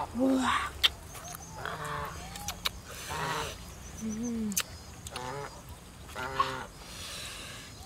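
Geese honking, a run of about six short calls spread across several seconds, with a few sharp clicks in between.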